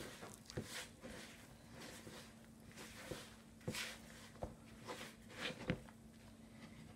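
A hand squeezing and pressing crumbly shortcrust pastry dough in a plastic mixing bowl. It gives faint, irregular squishing strokes, with a few light knocks against the bowl.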